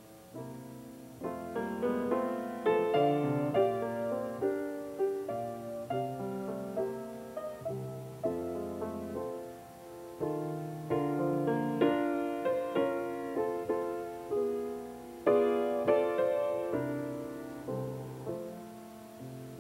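Background piano music: a slow piece of single notes and chords, each struck and then fading away.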